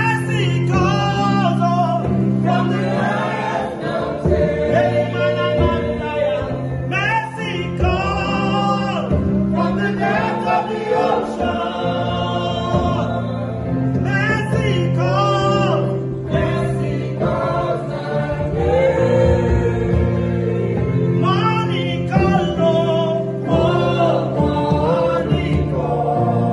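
Gospel song: voices singing together, choir-style, over sustained low accompaniment.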